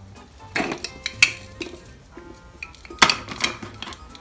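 Plastic toy food pieces and a plastic toy cutting board knocking and clattering on a tabletop as they are handled and set down, in a few sharp clacks about half a second in, near a second and a quarter, and around three seconds.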